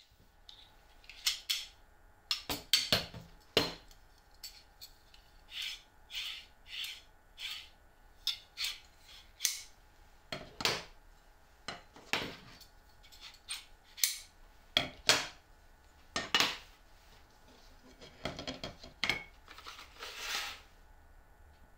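Telescoping steel drawer slides being handled, pulled apart and set down on a cutting mat: a string of sharp metallic clicks and clacks, with a longer scraping stretch near the end.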